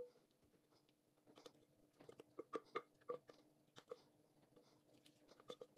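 Faint, irregular taps and scrapes of a spatula against a glass mixing bowl as madeleine sponge batter is scraped out onto a baking mat, about a dozen soft knocks starting after about a second.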